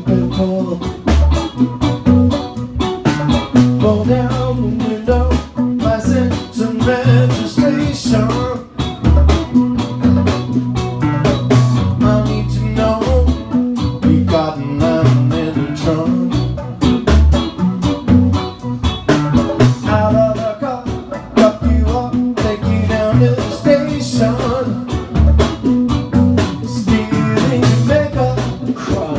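Live band playing a song: electric bass, guitar and drum kit, with a voice singing.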